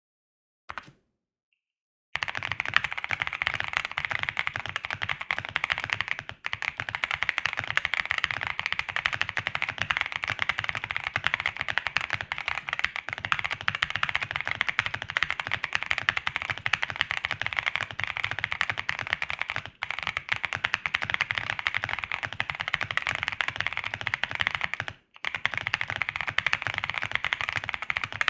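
Fast continuous typing on a 75% mechanical keyboard with lubed and filmed Boba U4T tactile switches, a polycarbonate plate and MT3 keycaps. A single keystroke comes first, then a steady stream of keystrokes starts about two seconds in, with a few short pauses.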